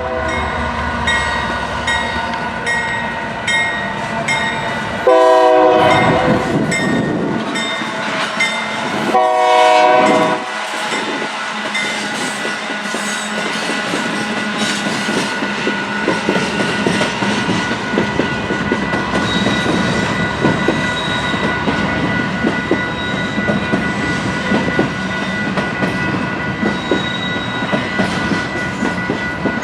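Diesel freight locomotive's horn sounding two blasts, the first about five seconds in and the second about nine seconds in, followed by the steady clickety-clack of freight cars rolling past.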